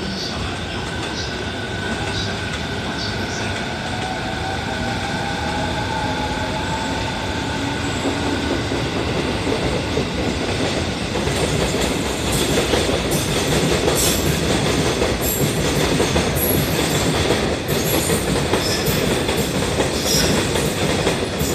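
JR East 209 series 2100 subseries electric multiple unit pulling out and accelerating, its traction motors whining upward in pitch in the first several seconds. From about halfway the train noise grows louder, with wheels clicking over rail joints.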